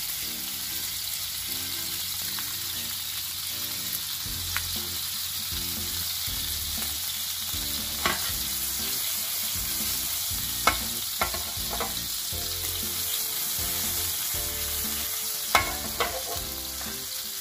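Margarine melting and sizzling in a hot ridged grill pan, a steady frying hiss with a few sharp clicks.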